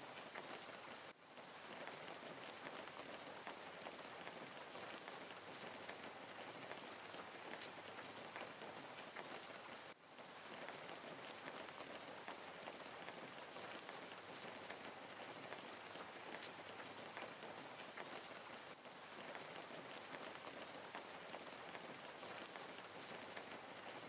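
A steady, even hiss dotted with fine crackling ticks, like rain falling, that drops away briefly about one second and ten seconds in.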